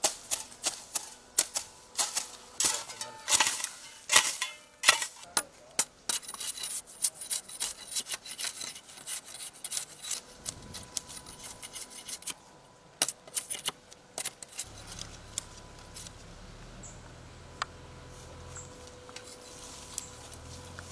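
Rapid, irregular sharp strikes of hand tools hacking and cutting at grass and ground, thinning out after about ten seconds. A low steady hum comes in about two-thirds of the way through.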